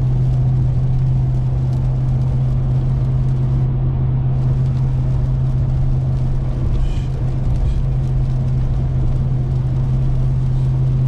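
Supercharged 6.2-litre Hemi V8 of a 2021 Ram 1500 TRX at a steady cruise, heard from inside the cab as an even low drone, under a constant hiss of tyres on a wet road and rain.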